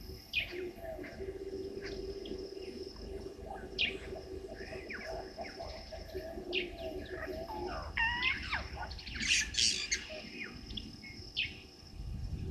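Several wild birds calling: scattered chirps and short harsh calls, busiest and loudest about nine to ten seconds in, over a low steady drone during the first half.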